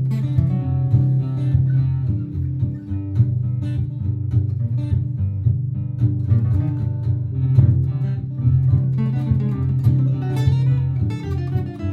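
Martin GPCPA4 acoustic guitar played through a looper: a looped chord part holds a steady low bed while plucked single-note improvisation runs over it.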